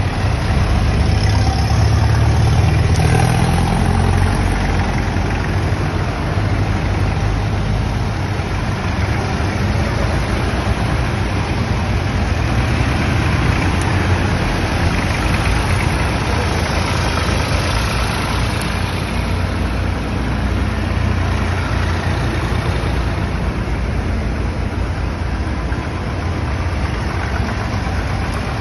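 Engines of vintage farm tractors running as they drive past one after another, loudest in the first few seconds as one passes close.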